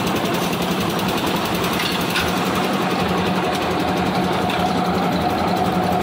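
Lift-type concrete mixer's engine running steadily. A steady higher whine comes in about halfway through.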